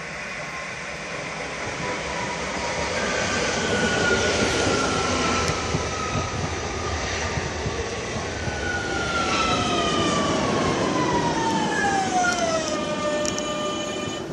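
Metro Valencia train heard from on board, running with a steady rumble and hiss, then slowing: a motor whine falls steadily in pitch from about two-thirds of the way in and levels off near the end as the train comes to a stop.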